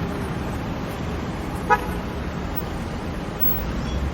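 City street traffic: a steady rumble of passing cars, with one short car-horn beep a little under two seconds in.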